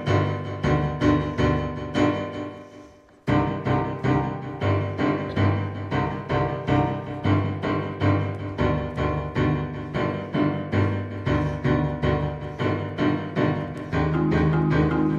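Piano music with a steady pulse of repeated notes. It fades away about two and a half seconds in, then comes back in suddenly about a second later, and grows fuller near the end.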